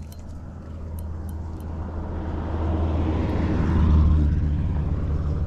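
Drone of a passing motor vehicle over a steady low engine hum, building to its loudest about four seconds in and then easing off. A few light clicks in the first two seconds.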